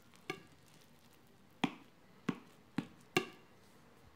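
A steel knife knocking against a ceramic plate and the cake on it: five sharp knocks spread over about three seconds, the first and last with a short ringing tone.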